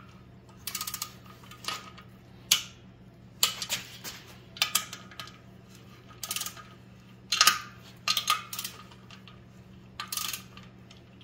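Torque wrench and its ratchet clicking in short bursts, about ten times, as the pressure-plate bolts of a clutch on an LS1 V8 are tightened one after another to 22 foot-pounds, with a faint steady hum underneath.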